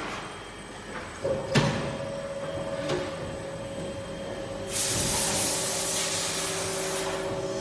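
Hydraulic compression moulding press for melamine tableware at work: a sharp metallic knock about one and a half seconds in, a steady whine that comes in just before it and runs on, and a loud hiss lasting about two seconds near the end.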